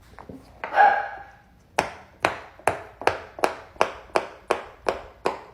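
Silicone pop-it fidget toy being pressed bubble by bubble: about ten sharp pops in a steady run, two or three a second.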